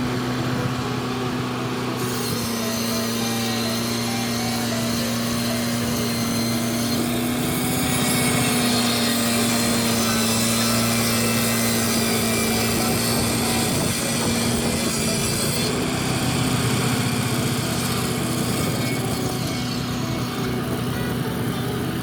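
Circular sawmill blade cutting through a log, over an engine running steadily. The bright rasp of the cut starts about two seconds in and drops away about fifteen seconds in, leaving the engine and the spinning blade.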